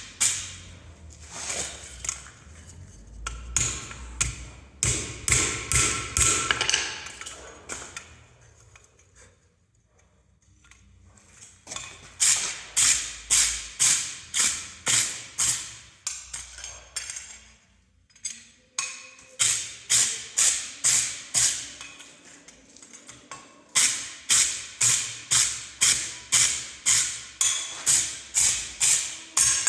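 Hammer blows on hot steel while forging leaf blanks. They come in runs of about three ringing strikes a second, with a pause of a few seconds in the middle.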